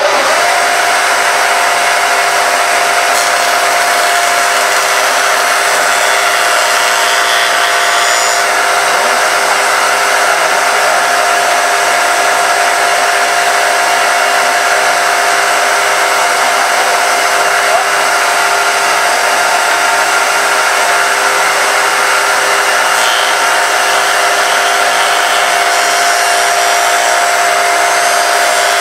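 Spindle moulder (wood shaper) running at full speed, its motor and cutter block giving a loud, steady whine. Near the end, oak strips are fed past the cutter and it begins cutting.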